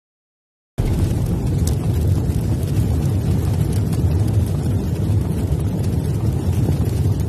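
Loud, deep rumbling intro sound effect for a logo reveal, cutting in suddenly about a second in and holding steady.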